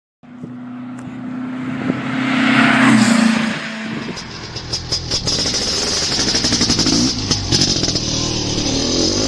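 Motor vehicle engine with a steady drone that swells to its loudest about three seconds in, then eases off as a busier, rhythmic sound takes over.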